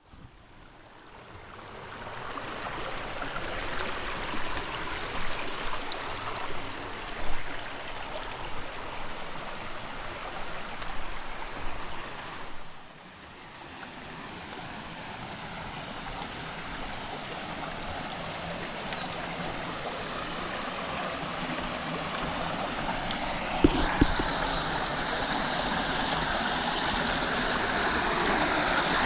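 River water rushing and gurgling over rocks. It fades in at the start, drops away briefly about halfway through, then grows steadily louder. Two sharp knocks come close together near the end.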